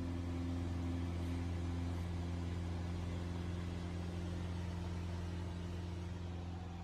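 Steady low drone of a light aircraft's engine heard from inside the cabin, beginning to fade near the end.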